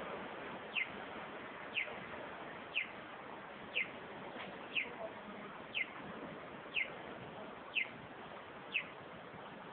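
Japanese audible pedestrian crossing signal chirping like a small bird: short falling-pitch chirps at a steady one per second, nine in all, stopping near the end. The chirping marks the walk phase for pedestrians. Under it is a steady street hiss.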